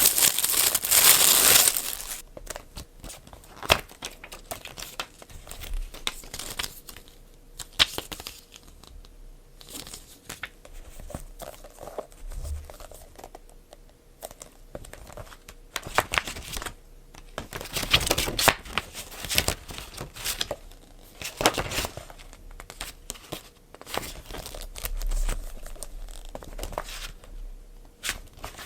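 Packaging being handled and torn open by hand: crinkling and tearing rustles, loudest in the first couple of seconds, then in irregular bursts.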